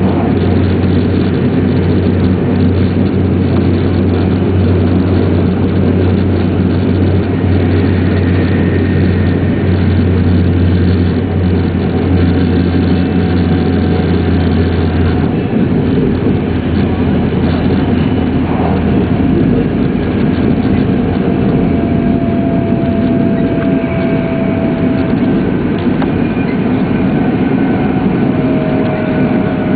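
Interior running noise of an E2-series Shinkansen at speed: a steady rumble of wheels and air. A low hum drops away about halfway through, and faint whining tones slowly fall in pitch in the second half.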